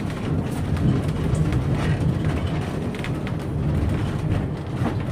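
Diesel-powered passenger train heard from aboard while moving: a steady low rumble of engine and wheels on the rails, with a few faint clicks.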